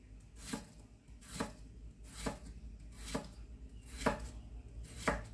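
Chef's knife dicing a raw potato on a wooden chopping board, the blade knocking the board six times at about one cut a second.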